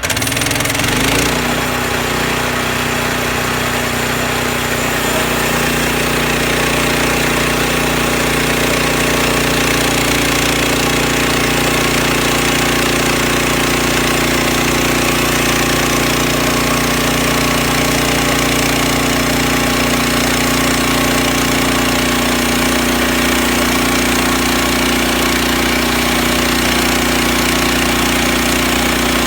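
Sawmill running: its engine holds a steady speed under a continuous dense mechanical noise, its pitch rising slightly in the first few seconds and then holding.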